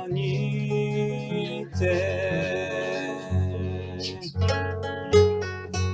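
A song: a sung line held over guitar accompaniment, then plucked acoustic guitar notes from about four seconds in.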